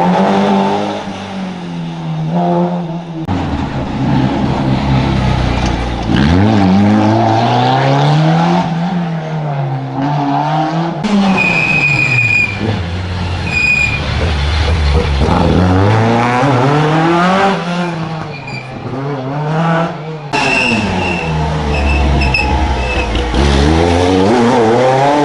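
Historic rally cars at racing speed, their engines revving hard, climbing through the gears and dropping back again and again, with short tyre squeals in the corners. The sound changes abruptly several times as one car gives way to another.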